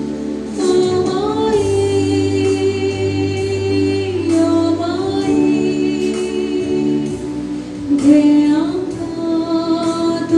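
Music with singing: slow, long held vocal notes over sustained chords.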